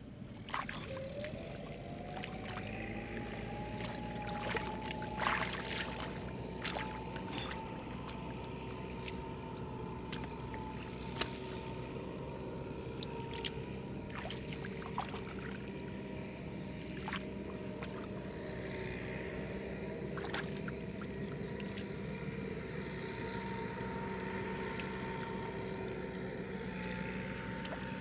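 A motor running steadily; its pitch rises over the first few seconds, then holds. Scattered sharp clicks and knocks sound over it.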